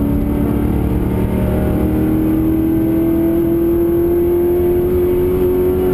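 Holden V8 race car engine heard from inside the cabin, pulling hard on the track, its pitch climbing slowly and steadily as the car accelerates.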